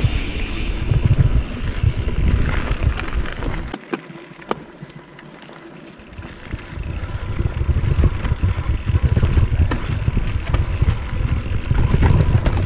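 A mountain bike being ridden along a trail: a heavy low rumble of wind and tyres, with scattered clicks and rattles from the bike. The rumble drops away for about two seconds near the middle, then comes back.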